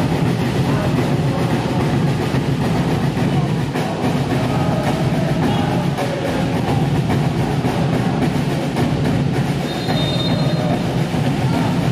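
Steady, continuous crowd din filling an indoor sports hall during a futsal match. A short referee's whistle blast sounds about ten seconds in.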